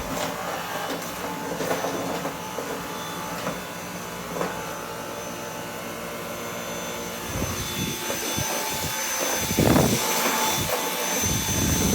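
Cordless Dyson stick vacuum running steadily with a high motor whine. In the second half come a series of low thuds and scuffs.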